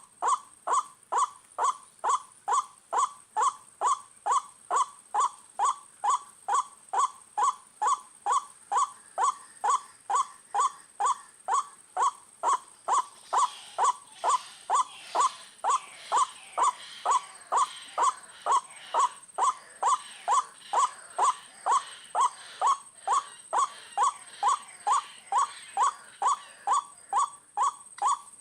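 White-breasted waterhen call: one short note repeated very evenly about twice a second, each note dropping slightly in pitch, with a faint steady high whine underneath.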